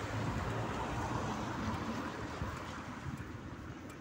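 A car passing close by after crossing the tracks, its tyre and engine noise fading as it drives away.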